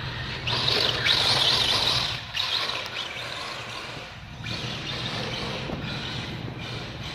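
Radio-controlled drift car running on a track, its hard plastic tyres scrubbing and sliding across the surface. It is loudest for about a second and a half near the start, then steadier.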